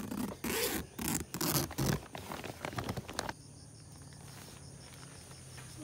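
Tent door zipper pulled open in several quick strokes, with nylon fabric rustling, for about the first three seconds. After that, insects trill steadily in the background.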